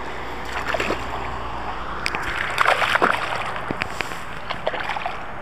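Water splashing and sloshing, with a flurry of sharp splashes and knocks about two to three seconds in.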